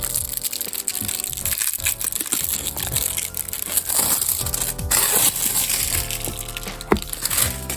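Plastic packaging crinkling and rustling as it is handled and opened, over background music.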